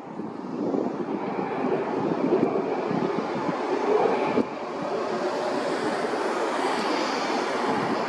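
Boeing 737-900 jet airliner's CFM56-7B engines on landing approach: a continuous rushing jet noise, with a faint high whine near the end. Strong wind is blowing on the microphone.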